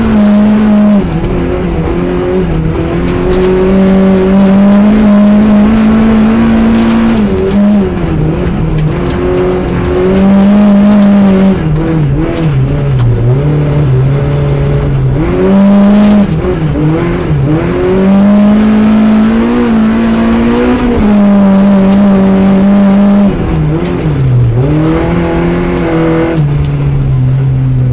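Rally car engine heard from inside the cabin, held at high revs and dipping sharply several times as the driver lifts off and changes gear, then settling at lower revs near the end.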